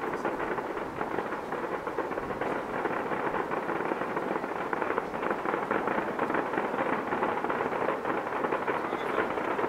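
Distant fireworks crackling steadily: a dense, rapid patter of small pops with no single big bang.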